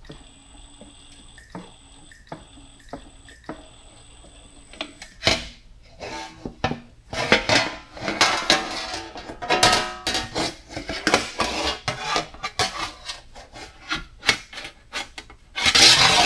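Sheet-steel cab corner panel being run through a bead roller's dies: a few light clicks at first, then, from about five seconds in, the large curved panel rattling, scraping and flexing in irregular metallic clanks, loudest near the end.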